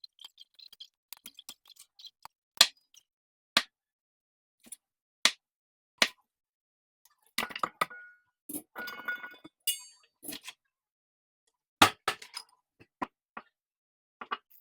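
Kitchen utensils and dishware clinking and knocking in a string of separate sharp strikes, with a few short scraping, rustling stretches around the middle.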